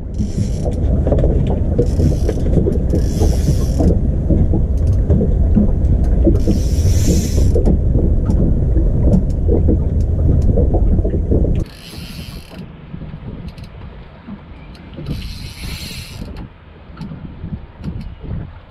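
Spinning reel turning under load and its drag buzzing out in short irregular bursts as a hooked fish pulls line against the bent rod. A loud low rumble fills the first twelve seconds, then drops off suddenly.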